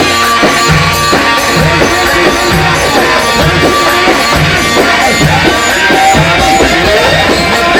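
Loud instrumental band music: a steady, repeating drum beat under a bending, ornamented melody line.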